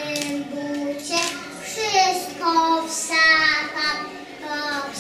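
A group of preschool children singing a song together, in sustained sung phrases.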